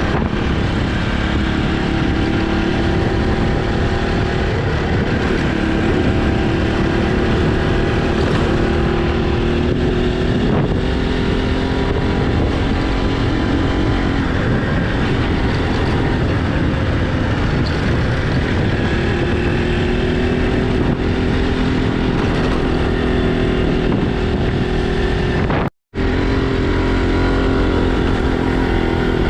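Motorcycle engine running while riding, its note rising and falling gently with the throttle, over a heavy rumble of wind on the microphone. The sound cuts out for an instant near the end.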